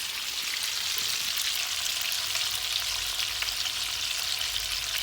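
Bacon sizzling and crackling in a frying pan: a steady high hiss with many small pops.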